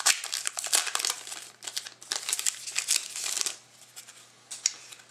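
Crinkling of a trading-card pack wrapper being handled and torn open. The crackling dies down about three and a half seconds in, leaving a few light clicks.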